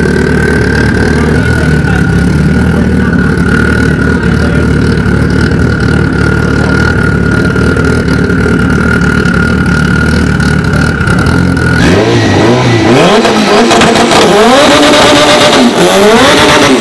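Turbocharged Honda Civic EF engine running loudly and steadily with a high whine over it. About twelve seconds in, the revs climb and fall over and over as the car does a tyre-smoking burnout.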